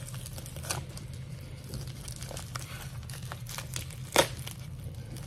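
Stapled paper packaging crinkling and tearing as it is pulled open by hand, with one sharp rip about four seconds in.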